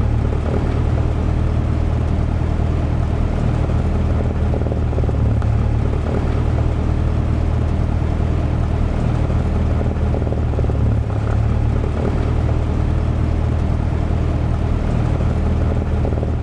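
Cessna 172's piston engine and propeller running steadily at low power while taxiing after landing, an even drone.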